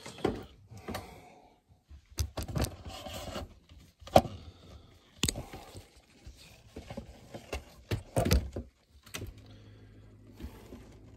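Handling noise as a handheld camera is carried and set about an open car door: irregular knocks, clunks and scrapes, the sharpest about four seconds in. A faint low hum comes in near the end.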